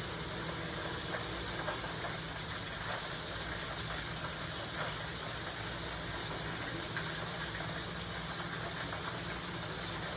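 Steady sizzle of breaded squid frying in hot oil, with faint scattered crackles and a low steady hum underneath.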